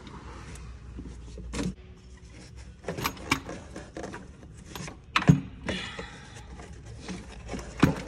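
Irregular clicks, knocks and clinks of engine parts being handled and worked loose by hand, as on a V8 intake manifold being pried off its mounting tabs. The loudest knock comes a little past five seconds in.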